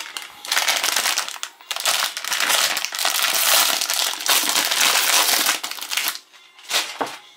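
Foil-lined plastic snack wrapper crinkling and crumpling as it is opened and handled, a dense rustle that stops about six seconds in, followed by a couple of brief rustles near the end.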